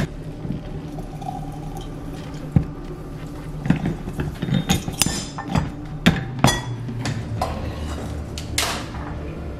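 Metal lever-press citrus juicer being worked: a string of irregular sharp knocks and metallic clinks, with glass clinking.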